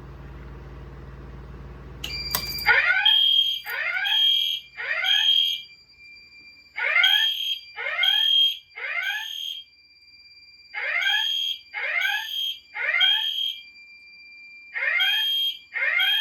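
EST Genesis ceiling-mount fire alarm horns going into alarm about two and a half seconds in, sounding the temporal-3 evacuation pattern: three short blasts, a pause, repeated, with a steady high tone underneath. A click comes just before the horns start.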